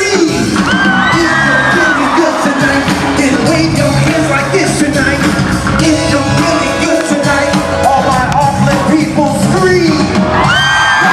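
Loud music with singing, with yells and whoops from the crowd.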